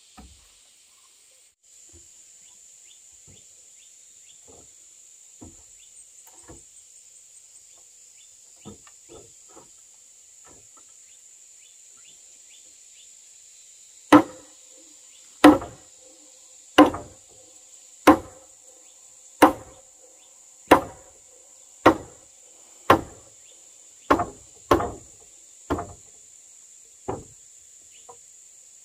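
Hammer striking a timber beam of a wooden house frame: about a dozen heavy knocks, roughly one every second and a bit, starting halfway through and thinning out near the end. A steady high-pitched insect drone runs underneath.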